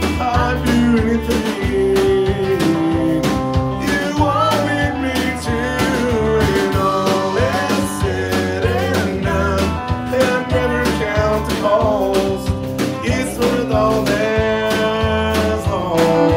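Live country music: a man singing the lead vocal over strummed acoustic guitar, with steady bass and a beat from the band.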